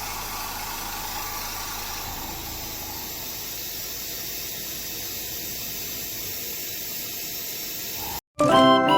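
Steady hissing noise with no clear rhythm; about eight seconds in it cuts out completely for a moment, and music with clear held notes begins.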